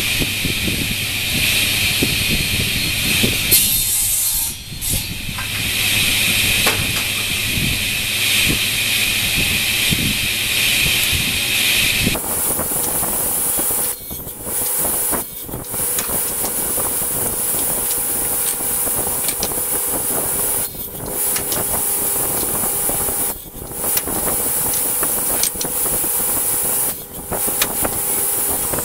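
Table saw running steadily while small wooden blocks are crosscut on a sled. The sound changes abruptly about twelve seconds in and dips briefly a few times.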